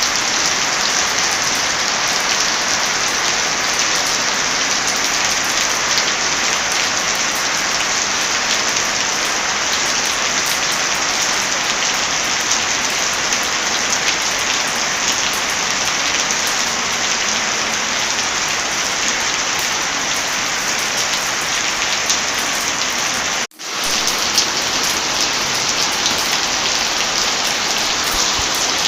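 Steady heavy rain: a dense, even hiss of drops. About two-thirds of the way through, the sound cuts out suddenly for a fraction of a second, then returns.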